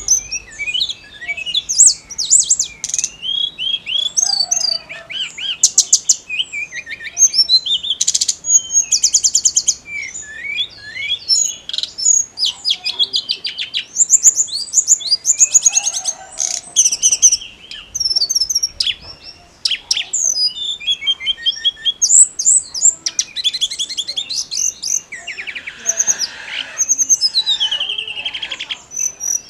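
Tledekan gunung singing continuously in full, energetic song: a dense run of quick varied chirps and high whistles broken by fast buzzy trills.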